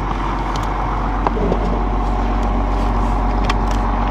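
Snowcat engine running, a steady low drone, with a few light knocks.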